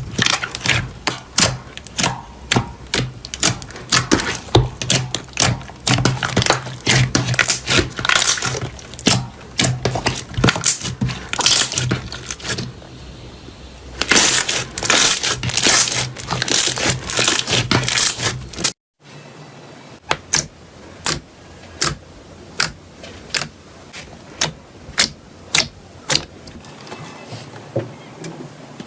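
Slime being squeezed and pressed by hand, with a dense run of crackles and pops. After a sudden cut about 19 seconds in, it gives sharper, separate pops about twice a second.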